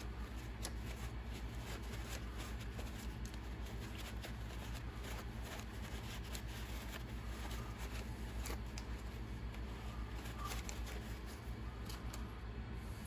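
Small clicks and light rustling of small screws and parts being handled and cleaned by hand, scattered irregularly over a steady low hum.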